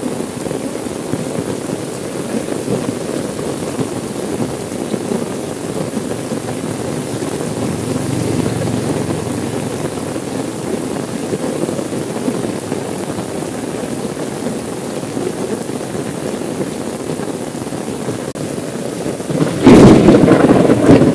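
Steady rain falling on a car, heard from inside the cabin. A loud clap of thunder breaks in near the end and keeps rumbling.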